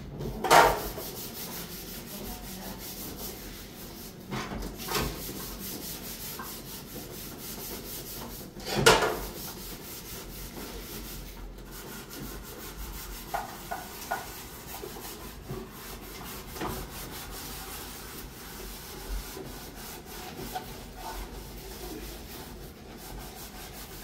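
Steady rough rubbing or scraping against wood, with two sharp knocks, one just after the start and one about nine seconds in, and a few lighter ticks.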